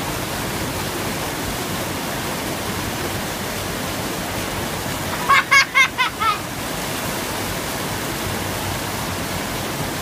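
Steady rush of whitewater pouring over a low concrete weir into a creek. About five seconds in, a short run of high-pitched calls rises above it for about a second.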